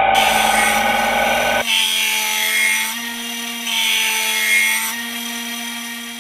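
A 1x30 belt sander runs with a steady hum while a 440C stainless steel knife blade, clamped in a grinding jig, is ground against the belt. The heavier grinding stops abruptly about a second and a half in. The hiss of steel on the belt then swells twice, around two and four seconds in.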